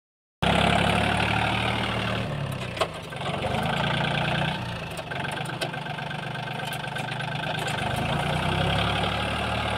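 VST 929 DI EGT compact tractor's diesel engine running steadily under light load as it pulls a seed drill, with a few sharp clicks and knocks from the rig. The engine hum fades somewhat mid-way and comes back stronger near the end.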